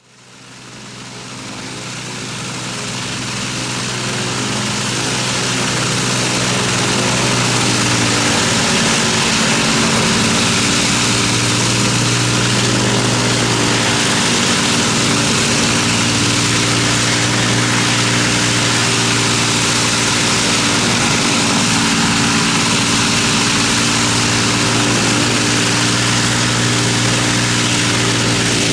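Avro Lancaster's four Rolls-Royce Merlin V12 engines running together on a ground engine run, propellers turning. A steady, heavy drone fades in over the first several seconds and then holds level.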